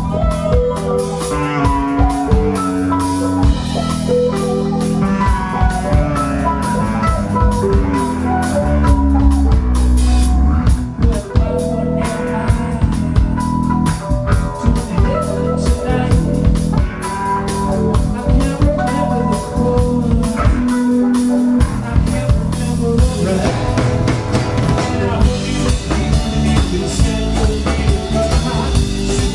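A live trio of acoustic guitar, electric bass guitar and drum kit playing a song without a break.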